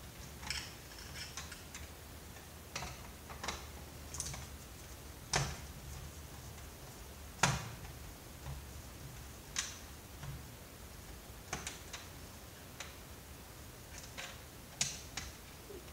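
Irregular light clicks and taps of plastic and metal parts and tools being handled while a CRT computer monitor is taken apart, with two louder knocks about five and a half and seven and a half seconds in.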